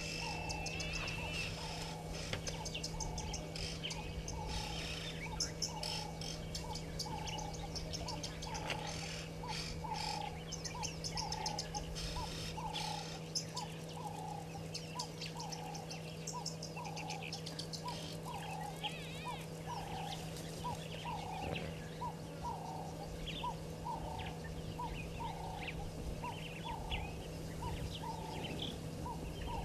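Bush ambience: an animal repeats a short call note about once a second, over dense high bird chirping and insect clicking, with a steady low hum underneath.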